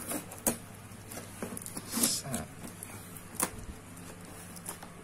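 Hands tearing and peeling packing tape and plastic wrap off a cardboard shoebox: scattered short crinkles, scrapes and clicks, a few louder tears about two and three and a half seconds in.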